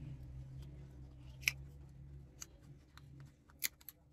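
Plastic back cover of a Samsung Galaxy A30 being pried off its frame with a plastic opening card: a few sharp clicks as the cover's clips snap loose, the loudest about a second and a half in and another near the end, over a low steady hum.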